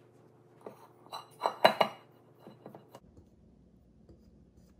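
A stainless steel stand-mixer bowl being handled, clinking and knocking against a utensil or the counter: a handful of sharp taps with a short metallic ring, the loudest about a second and a half in.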